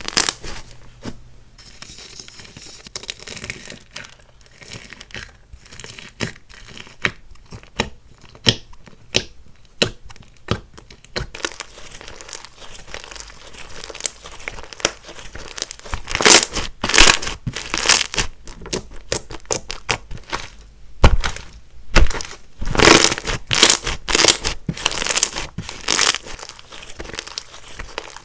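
Hands squishing, stretching and poking slime, making sticky crackling and popping sounds. The crackling gets louder and denser for a couple of seconds around the middle and again in the later part.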